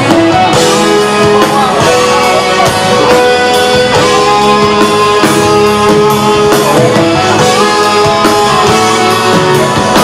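Live rock band playing loudly with electric guitar, bass guitar, drums and keyboards.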